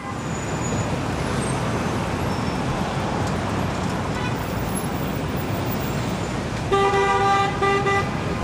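City street traffic noise, a steady rumble and hiss, with a vehicle horn honking twice near the end: one longer honk, then a shorter one.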